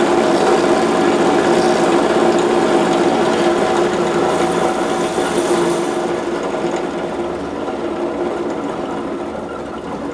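Bench grinder running with a steady motor hum while a drill bit is ground against its wheel in a sharpening jig. The grinding rasp stops about six seconds in, and the hum carries on, fading gradually.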